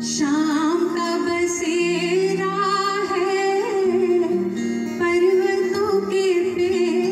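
A woman singing a Hindi song into a microphone, holding long notes with a wavering vibrato, over sustained keyboard chords and guitar, amplified through a hall sound system.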